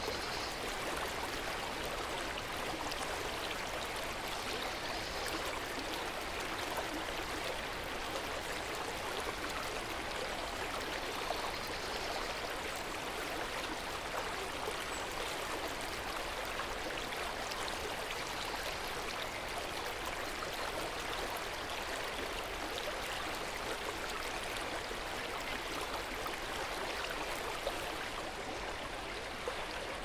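River water flowing over rocks in a steady, even rush.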